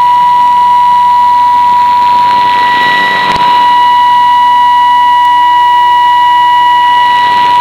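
Steady test tone of a shortwave test transmission, announced at −11 dBFS, received off the air with a hiss of static behind it. A brief click about three seconds in.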